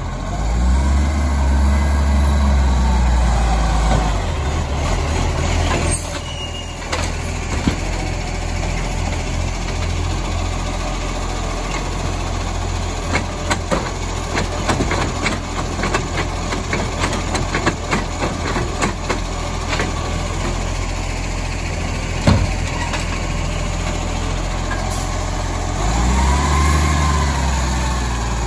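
Side-loader garbage truck's diesel engine revving to drive the hydraulic lifting arm, with a rising-then-falling whine at the start and again near the end. In between, a run of knocks and clatter as the garden organics bin is tipped and shaken over the hopper, and one sharp bang about two-thirds of the way through.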